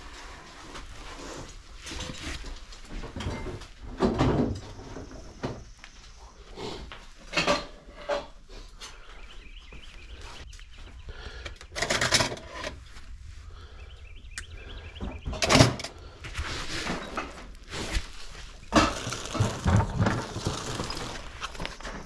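Household items being handled and moved about by hand: irregular knocks, clatters and rustles, the loudest about 4, 12 and 15 seconds in and a cluster near the end.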